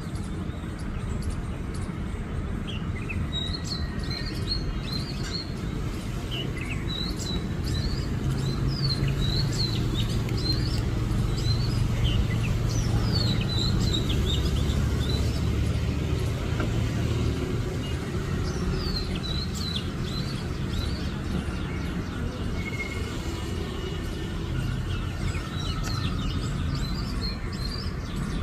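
A songbird chirping in bouts of short, quick, high notes, with pauses between the bouts. A steady low rumble runs underneath and swells for a stretch in the middle.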